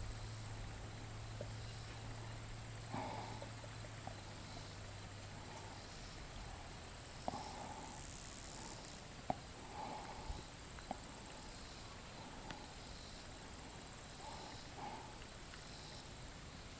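A horse moving about, with a few scattered sharp hoof knocks, over a steady high chirring of insects.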